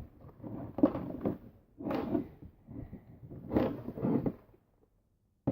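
Sticky fluffy slime being stirred and dug out of a container, making irregular short squishing and scraping handling sounds, with a few clicks against the container. The sounds stop about four and a half seconds in.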